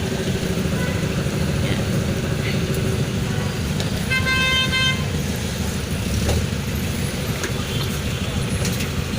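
Street traffic noise with a steady engine rumble; a vehicle horn honks once, for about a second, about four seconds in.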